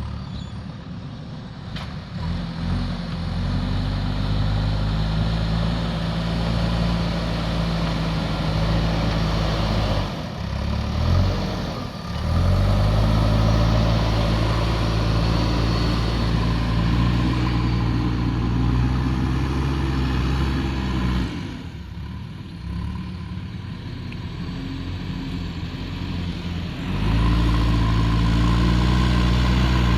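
Diesel engine of a JCB backhoe loader working, running up to a higher, louder speed for long stretches and dropping back to a quieter, lower run in between: briefly near the start, again about a third of the way in, and for several seconds past two-thirds.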